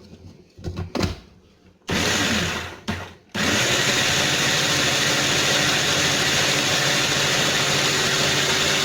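Small electric food processor chopping onion and garlic: a few knocks as it is set going, a short burst of the motor about two seconds in, then the motor running steadily and loudly for the rest of the time.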